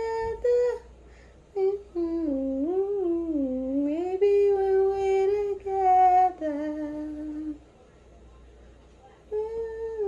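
A woman singing a slow melody without words, humming and crooning with long held notes that glide up and down. She breaks off for about two seconds near the end, then takes up the tune again.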